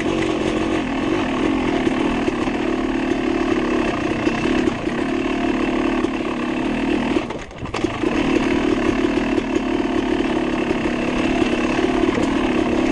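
Dirt bike engine running steadily under throttle, dipping briefly about halfway through and then picking up again.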